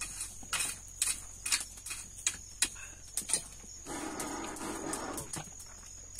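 Irregular sharp clicks and knocks for the first few seconds, then a drawn-out animal call, like a cow lowing, about four seconds in, lasting about a second and a half.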